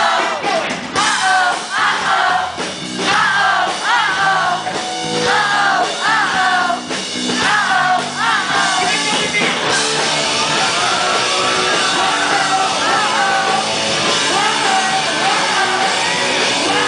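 Loud rock music with a singing voice over it, continuing without a break.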